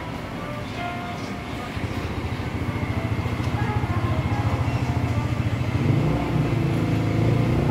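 A motor vehicle engine running close by, a low pulsing drone that grows louder about two seconds in and again near six seconds.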